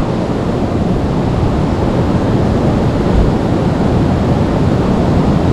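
A river's water rushing past in a steady, even noise.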